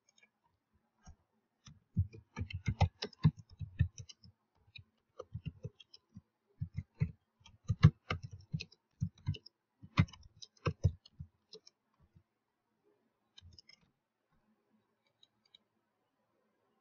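Typing on a computer keyboard: quick, irregular runs of keystrokes that stop about twelve seconds in, followed by a few scattered clicks.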